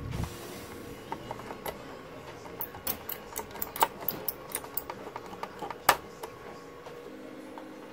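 An irregular run of small sharp clicks and taps from a tool and fingers handling a TV power supply board and its cable connectors, densest in the middle, over a faint steady hum.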